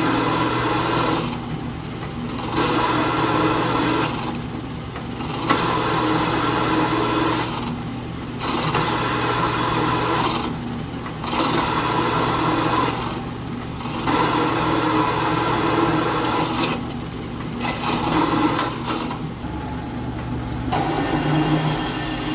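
Drill press driving a 5/8-inch annular cutter through 3/4-inch steel plate: a steady motor hum with repeated stretches of rough metal-cutting noise, each one to three seconds long, broken by short quieter gaps.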